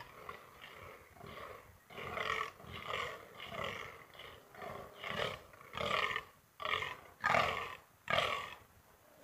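Fallow deer buck in the rut croaking: a long run of short, deep, repeated croaks, about one to two a second, getting louder about two seconds in.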